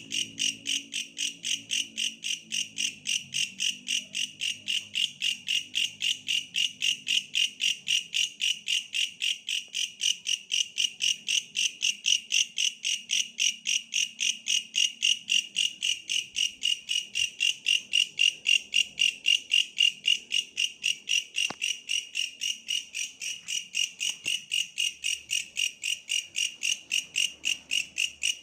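Tree grasshopper calling: a steady, even train of shrill pulses, about four a second, which carries on unchanged.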